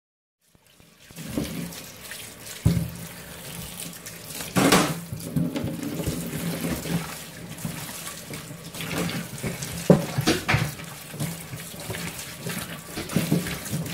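Kitchen tap running into a stainless steel sink while hands wash shredded iceberg lettuce, a cucumber and tomatoes, with splashing and a few sharp knocks against the sink.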